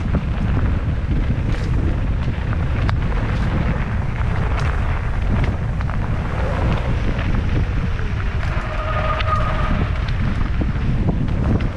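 Wind buffeting the GoPro's microphone as a mountain bike descends a dirt singletrack, with tyre noise and rattling clicks from the bike over bumps. A brief whine from the bike about nine seconds in.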